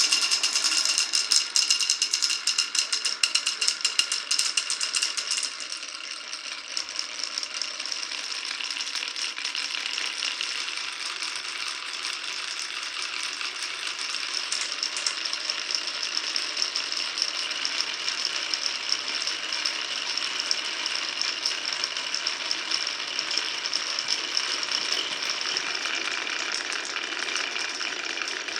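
Marbles running down a wooden marble run track: a loud, dense clatter of many marbles clicking against each other and the track for about the first five seconds, then a steadier, quieter rattle of marbles rolling along the course.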